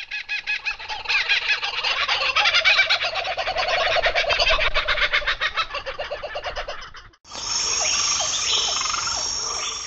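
Bird-call sound effect: a loud, rapid, pulsing call that chatters on for about seven seconds and drops slightly in pitch. After a short break comes a steady high buzz with scattered chirps.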